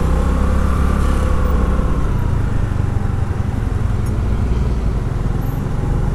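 Honda Activa scooter riding at speed on the highway: steady engine and road noise under heavy wind rumble on the microphone, with a faint whine that rises and falls in the first two seconds.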